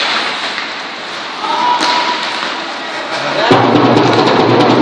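Ice hockey game ambience in an arena: sharp clacks of sticks and puck against the boards, skates on the ice and scattered voices. The noise gets louder and fuller about three and a half seconds in.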